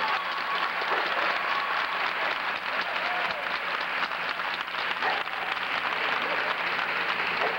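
Audience applauding steadily for the Best in Show winner.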